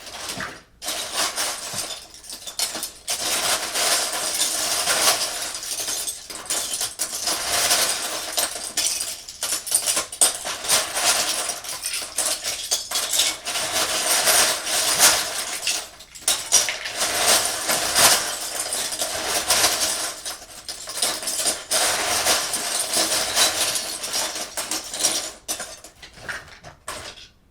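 LEGO bricks clattering against one another: a dense, continuous rattle of many small plastic clicks that swells and eases, with a few short pauses.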